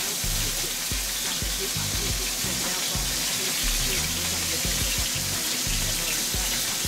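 Risotto pancake mixture sizzling steadily as it fries in hot olive oil and butter in a skillet. Background music with a repeating bass line plays underneath.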